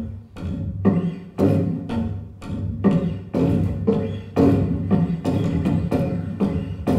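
Cello played with sharp, percussive strokes in a steady rhythm, about two a second, each attack ringing with a low pitch. It starts suddenly after near quiet.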